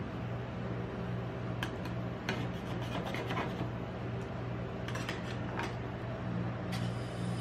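Metal spatula scraping across a sheet of rolled ice cream on a steel cold plate, in several short strokes, over a steady low machine hum.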